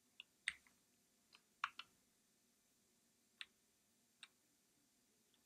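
About half a dozen faint, scattered computer keyboard key clicks, with near silence between them.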